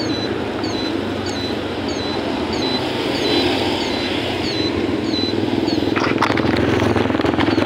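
Motorcycle engine running under way, with wind and road noise, getting louder in the last couple of seconds. A faint high chirp repeats a little under twice a second, and there is a brief clatter about six seconds in.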